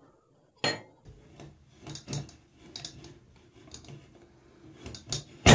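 Old Moen chrome tub spout with diverter being twisted and worked off its copper supply pipe: a sharp metallic knock about half a second in, then scraping and light clinks, with the loudest knock near the end.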